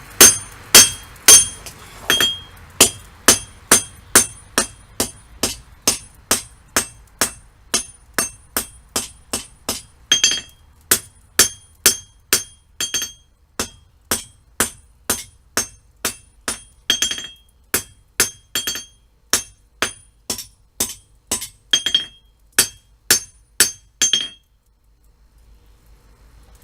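Hand hammer striking hot steel on an anvil in a steady rhythm of about two blows a second, each blow with a bright ring, as a knife blade is rough forged to thin a thick spot. The hammering stops about 24 seconds in.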